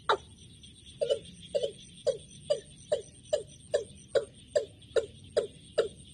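Caged decoy bird calling a fast, steady series of short notes, about two and a half a second, each a sharp note sliding down in pitch, to lure a wild male to the trap. A steady high insect trill runs underneath.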